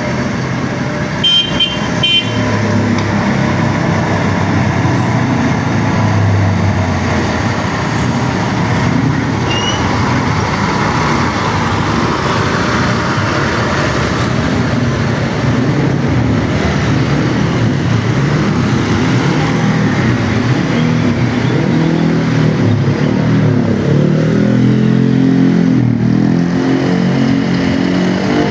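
A heavy road vehicle's engine running in traffic, with a few short horn beeps about a second in. Near the end the engine revs up and down.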